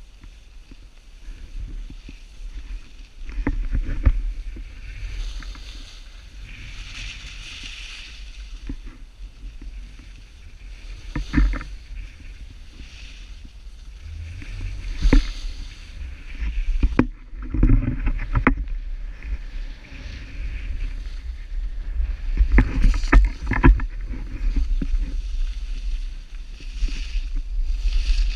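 Skis sliding and scraping over packed snow, with louder scraping bursts every few seconds as the skier turns, over a steady low wind rumble on a pole-mounted GoPro's microphone.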